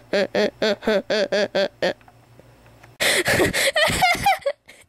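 A voice making rapid, evenly spaced breathy pulses, about five a second, for the first two seconds. About three seconds in comes a louder, strained, wavering vocal outburst without words.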